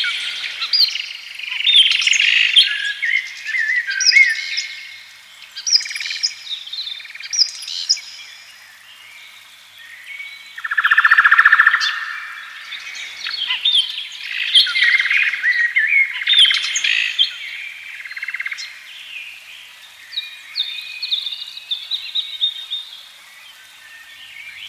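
Several songbirds singing at once, overlapping chirps, trills and whistles, with a louder buzzy trill about halfway through.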